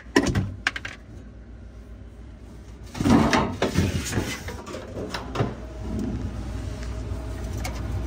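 Plastic rear panel of a refrigerator's freezer compartment being pulled free and handled: a few light clicks, then a cluster of knocks and plastic rubbing about three seconds in, with scattered knocks after. A low steady hum follows near the end.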